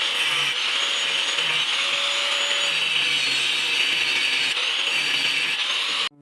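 Steady rasping of a tool working the steel of an old saw blade being shaped into a knife. The noise cuts off suddenly near the end.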